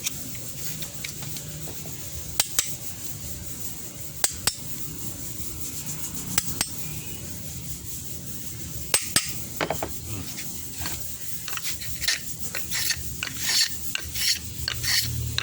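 Rasping, scraping hand strokes. A few short sharp scrapes come about two seconds apart, then quicker strokes follow in the last few seconds.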